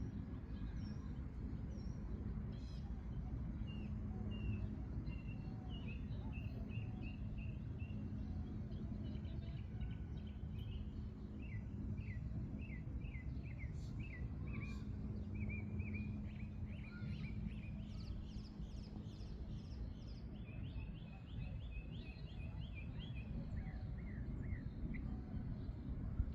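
Small birds chirping and trilling, many short repeated notes, over a steady low outdoor rumble.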